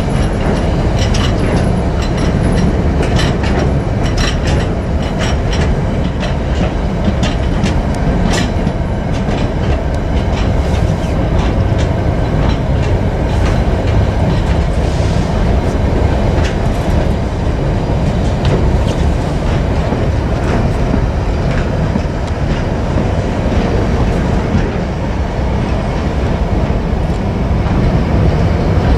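Empty container flat wagons of a freight train rolling past close by, with a steady heavy rumble and the clatter of wheels over rail joints. The clatter is busiest in the first several seconds.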